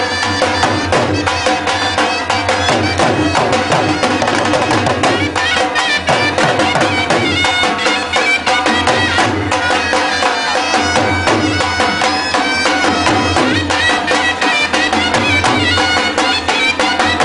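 Loud Indian folk dance music with a fast, steady beat and a melody line over it.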